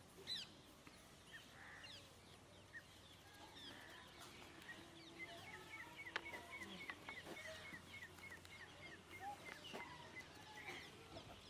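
Faint birdsong: several birds giving short falling chirps. From about five seconds in, one bird repeats a short note about four times a second for some five seconds. One sharp click sounds about six seconds in.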